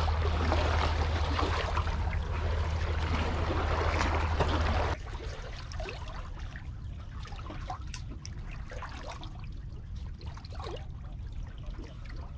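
Seawater trickling and lapping among concrete tetrapods, under a low rumble that cuts off suddenly about five seconds in. After that it is quieter, with scattered light clicks from handling the baitcasting reel and line.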